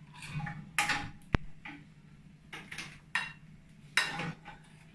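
Cookware being handled on a gas stove: a frying pan and a utensil make several short knocks and scrapes, with one sharp click about a second and a half in.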